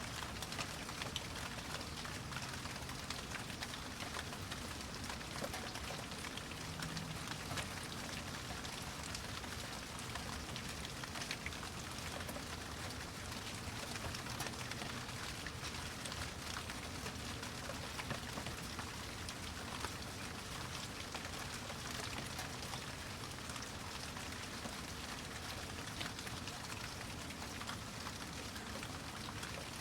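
Steady rain: an even hiss with many distinct, sharp drop hits.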